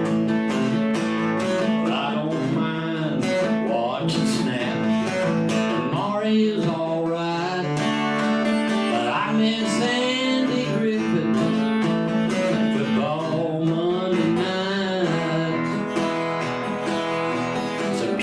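Instrumental break in a live country song: strummed acoustic guitar chords with a melody line sliding up and down in pitch over them.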